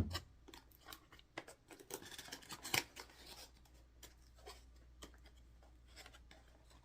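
Hands opening and handling a craft kit's box and packaging: a sharp click right at the start, then scattered light clicks and rustles, with another sharp click a little under three seconds in.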